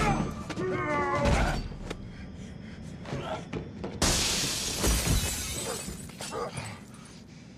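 Movie fight sound effects: punches and thuds, then, about four seconds in, a sudden loud crash of shattering glass that fades over a second or so, followed by a few more knocks. Soundtrack music with a singing voice plays under the first second or so.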